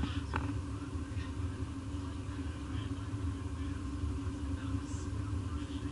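Steady low rumble and hum of a cruise ship's machinery, even throughout, with a constant droning tone.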